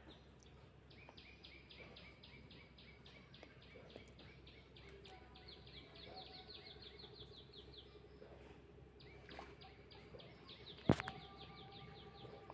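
A bird calling faintly in long rapid runs of short, falling high chirps, about five a second, with a break of about a second before the next run. A single sharp click near the end.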